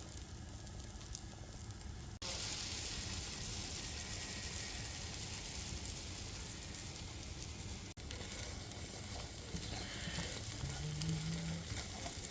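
Food sizzling in a hot frying pan with butter, a steady hiss that gets louder about two seconds in and breaks off for an instant near eight seconds.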